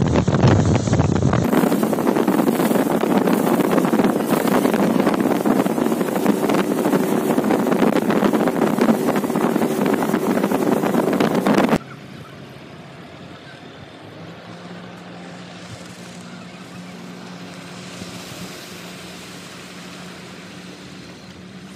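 Onboard a speedboat at full speed: wind buffeting the microphone over the rush of the hull and wake and the motor. About twelve seconds in it cuts abruptly to a much quieter, steady engine hum of the motorboat passing and approaching.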